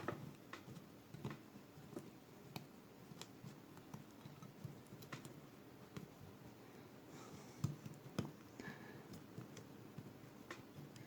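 Faint, irregular clicks and light taps of small metal ratchet parts being handled and fitted together by hand as the spring is set in place.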